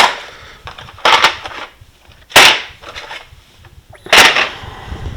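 Four sharp clacks, unevenly spaced a second or two apart, as cased tool kits are handled and knocked against each other in a toolbox drawer.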